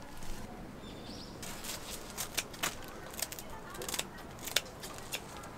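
Kitchen scissors snipping the crisp overflowed batter off the edge of a freshly cooked waffle: a run of sharp, irregular snips and crackles starting about a second and a half in.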